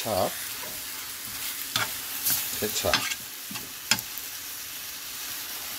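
Spaghetti with kimchi and tuna sizzling in a frying pan while it is tossed with a spatula, with a handful of short scraping strokes against the pan.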